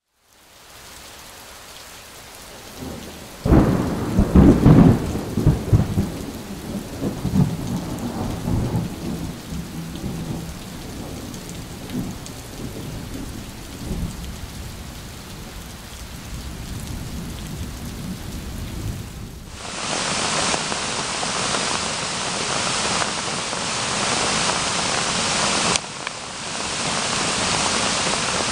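Steady rain falling, with a long peal of thunder that breaks in a few seconds in and rumbles away over several seconds. About two-thirds of the way through, the sound cuts to a louder, steady rush of water.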